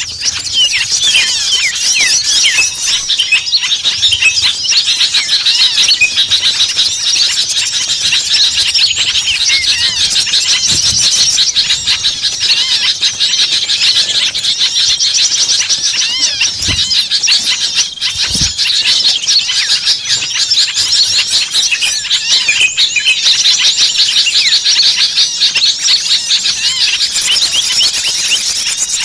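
A dense, agitated chorus of many small songbirds chirping and squeaking at once, high-pitched, rapid and unbroken: an Indonesian lure recording of noisy small birds ('burcil ribut') used to draw birds in.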